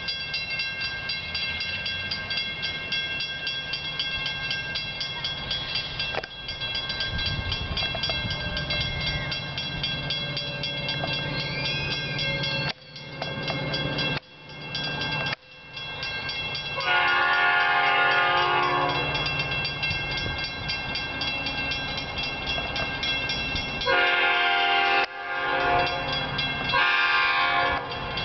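Railroad grade-crossing bell ringing steadily over the low hum of an approaching Metra commuter train. About two-thirds of the way through the train's horn sounds a long blast, then a string of further blasts near the end, the horn signal for the crossing. The sound drops out briefly three times midway.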